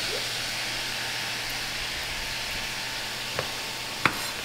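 Diced pears and shallots sizzling steadily as they sauté in a saucepan on a gas burner. A light tap comes about three seconds in and a sharper knock just before the end.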